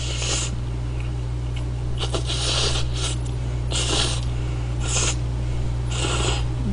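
A person slurping Buldak spicy chicken instant noodles off chopsticks: about five short, hissy slurps, the first at the start and the rest roughly a second apart from about two seconds in, over a steady low electrical hum.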